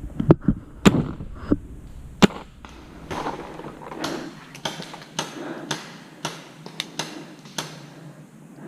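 Paintball markers firing: sharp pops, loudest in the first two seconds, then a string of quieter shots about two a second from about four seconds in.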